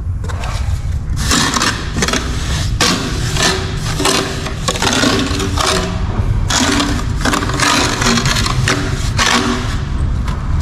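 Trowel scraping tile mortar across the ridged back of a porcelain-type ceramic tile in repeated strokes, about one a second, buttering the tile before it is laid. A steady low rumble runs underneath.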